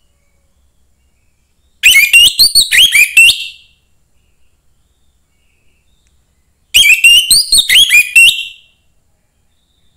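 Young wild orange-headed thrush singing: two loud phrases of rapid swooping whistled notes, each about a second and a half long, one about two seconds in and one near seven seconds.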